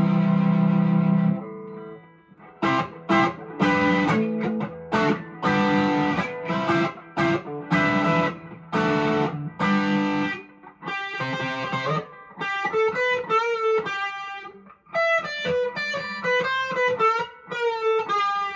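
PRS SE McCarty 594 electric guitar on its bridge humbucker, played through a Fulltone Full Drive 2 overdrive pedal into a Vox AC10 amp. A held chord cuts off about a second in, followed by a run of short chord stabs, then a single-note melody line in the second half.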